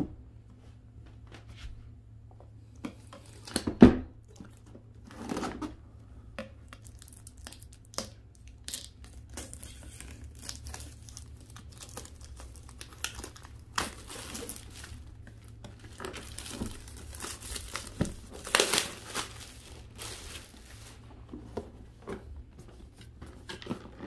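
Clear plastic shrink wrap being torn and crinkled off a cardboard product box, in irregular bursts of crackling that are densest in the second half, with one sharp knock about four seconds in.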